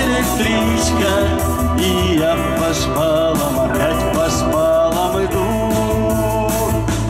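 Live band playing a song: electric guitars, bass guitar and keyboard over a steady beat.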